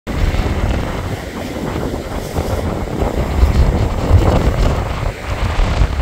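Strong wind buffeting the microphone in uneven gusts, over stormy sea surf breaking on a pebble beach.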